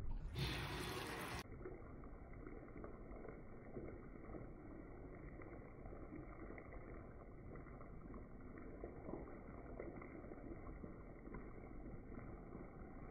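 Faint bubbling and crackling of sweet and sour sauce simmering in a frying pan, after a brief louder rush of noise about half a second in.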